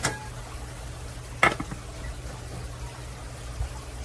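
Two short knocks of kitchenware being set down on a countertop, the first with a brief ring, the second about a second and a half later, over a steady low hum.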